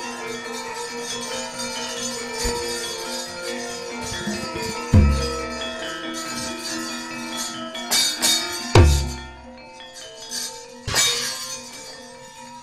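Javanese gamelan ensemble playing, with a steady web of metallophone tones. Deep drum strokes come about five and nine seconds in, and a few sharp knocks, typical of the dalang's keprak plates, come around eight and eleven seconds as the puppets move.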